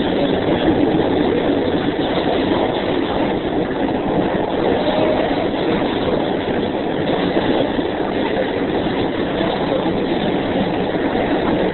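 Passenger train running, a steady rumble and rattle heard from inside the car.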